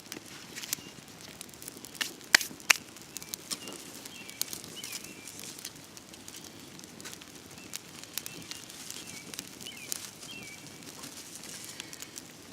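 Scattered sharp clicks and taps, two loud ones about two and a half seconds in, over a steady hiss, with short bird chirps now and then.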